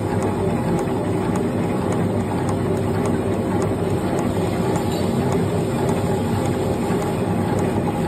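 Automatic paper-napkin folding and glue-laminating machine running steadily: a dense mechanical hum with a fast, even ticking about four times a second.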